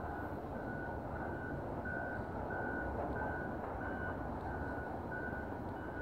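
A vehicle's reversing alarm beeping steadily, about one and a half beeps a second, over a steady low rumble.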